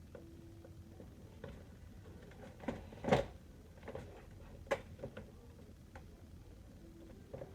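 Scattered clicks and knocks of tools and plastic parts being handled while screws are taken out of a Samsung robot vacuum's housing, with the loudest knock about three seconds in.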